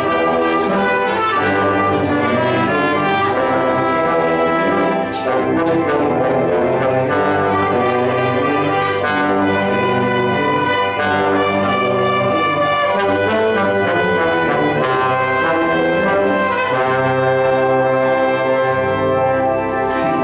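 Small church orchestra playing an instrumental passage of a hymn in sustained chords, with the brass (trombones and a tuba) most prominent over violins and clarinet.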